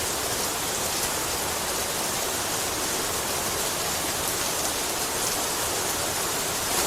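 Steady, even rain with a dense high hiss of falling drops.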